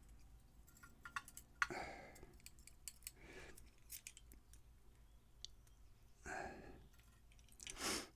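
Faint small metallic clicks and taps from a pin-tumbler lock being taken apart, its pins and springs being worked out of the chambers one by one. A few brief soft rushes of noise come between the clicks.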